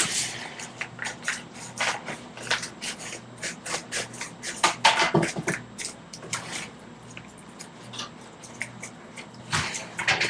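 Packaging being handled and opened by hand: irregular rustling, crinkling and scraping in many short bursts, busiest about halfway through and near the end.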